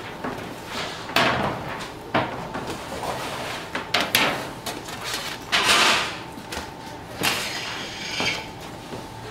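Irregular knocks and clatters of handling work, about seven in all, with a longer scraping rush a little past halfway, over a faint steady hum.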